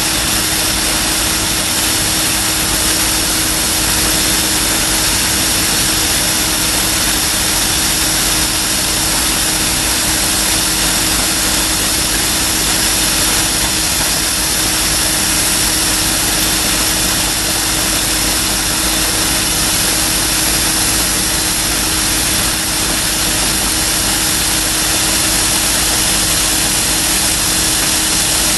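Small electric blower running steadily, drawing air through the freshly lit wood gasifier and pushing smoke out of its flare tube: a constant rushing hiss over a steady hum.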